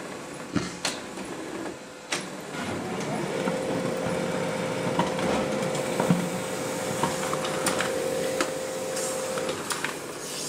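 OKI colour laser multifunction printer running a black-and-white copy job. A few clicks come as the mechanism starts, then the scanner, paper feed and print engine run steadily with a level hum for about six seconds that stops near the end.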